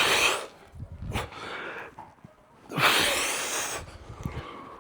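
A man breathing hard through exercise reps: two loud, forceful exhalations about three seconds apart, one with each rep.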